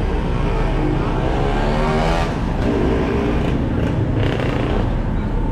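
Street traffic: motorcycle and car engines running and passing close by over a steady low rumble.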